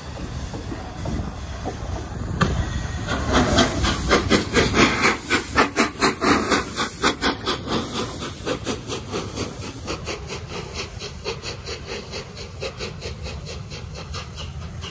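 Flying Scotsman, an LNER A3 Pacific steam locomotive, rolling slowly past close by with a steam hiss that pulses about four times a second over a low rumble. The hiss sets in a couple of seconds in, is loudest as the engine passes, and grows fainter as the coaches follow.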